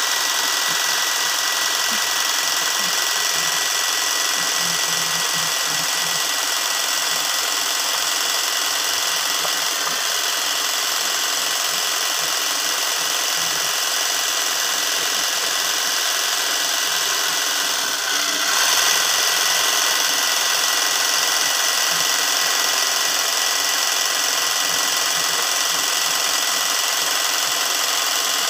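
Sewing machine running steadily, its needle stitching continuously in free-motion embroidery; it gets a little louder about two-thirds of the way through.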